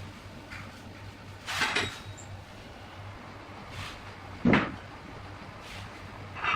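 Three separate knocks a couple of seconds apart, the middle one the sharpest and loudest, over a low steady hum.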